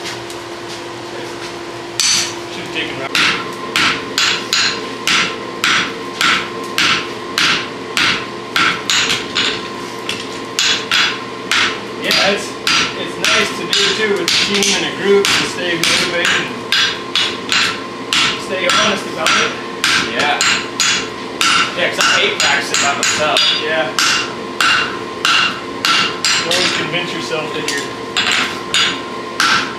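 Hand hammer striking a red-hot draft horseshoe on an anvil, a steady run of blows at about two a second that begins about two seconds in. A steady hum sits underneath throughout.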